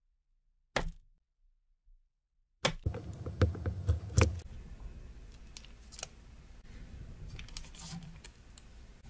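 A kitchen knife slicing through a chilled log of Earl Grey butter-cookie dough: after a single click, a run of sharp knocks with a soft thud starts about three seconds in as the blade goes through the dough and meets the board. Fainter ticks and light handling noise follow as the slices are picked off the parchment.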